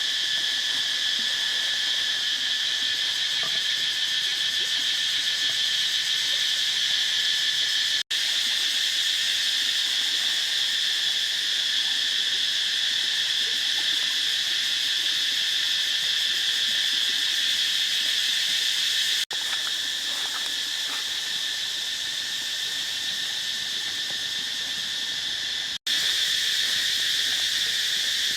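A steady chorus of insects droning at several fixed pitches at once. It cuts out for an instant three times.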